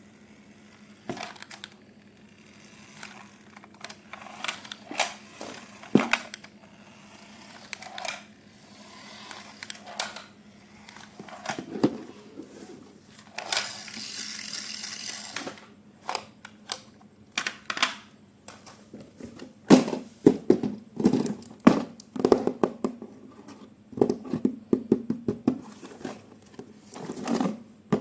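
Unboxing handling sounds: irregular clicks and knocks of hard plastic and cardboard being handled, growing busier in the second half, with a rustling, tearing-like burst of packaging about halfway through. A faint steady hum runs underneath.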